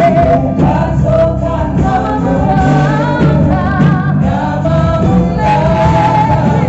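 Gospel music: a group of voices singing held, moving notes over steady instrumental accompaniment.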